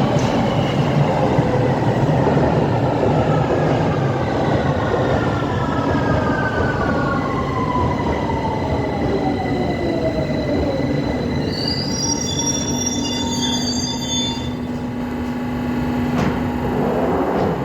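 Victoria line 2009 Tube Stock train pulling into the platform. Its traction motors whine in several tones that fall slowly as it brakes, then the wheels and brakes squeal high and shrill for a couple of seconds as it comes to a stop, leaving a steady low hum.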